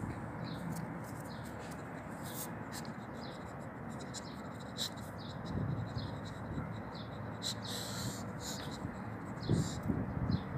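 Dog gnawing at an old wooden log, with short scraping and crunching sounds of teeth on dry wood, over a steady background hiss. The chewing grows louder near the end.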